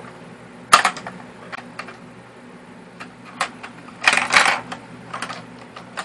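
Small hard balls of a toy pool table clicking and clacking against each other and the table's rails as a cat bats at them: one sharp click a little under a second in, a few light ticks, then a quick run of clacks at about four seconds.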